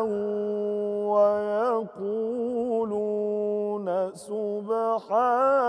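A man reciting the Quran in melodic tajweed chant, drawing out the end of a verse on one long held note with ornamented turns, then starting the next phrase.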